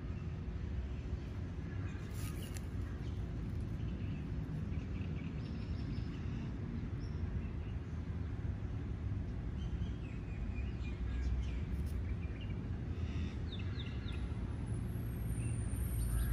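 Outdoor ambience: a steady low rumble with a faint hum, and small birds chirping here and there, a quick run of chirps near the end.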